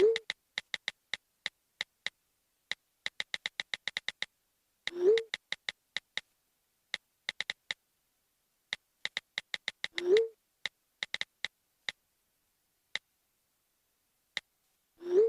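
iPhone keyboard clicks typing in quick irregular runs, with a short rising swoosh of a text message being sent about every five seconds, four times in all.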